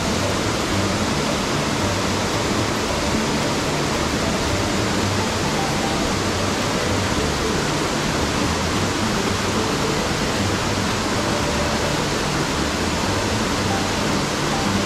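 Loud, steady rush of a waterfall and white water on a mountain headwater stream.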